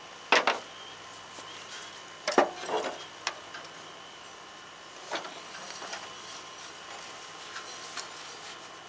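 A few sharp metal clanks and knocks, the loudest in the first three seconds and a lighter one about five seconds in, as a blade spindle is worked out of a steel mower deck and handled.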